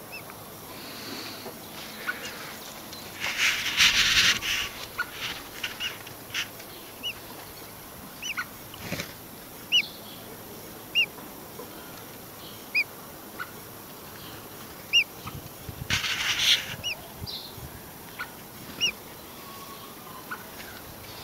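Common blackbird calls: short, sharp chip notes repeated about once a second. Two brief bursts of rustling, about four seconds in and again near sixteen seconds, are the loudest sounds.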